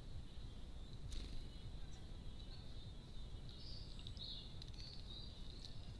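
Faint, high, thin bird calls over a steady low background rumble, with a single sharp click about a second in.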